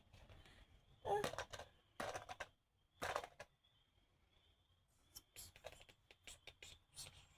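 Plastic fidget toys being handled: faint, irregular clicks and knocks, with a quicker run of small clicks in the second half.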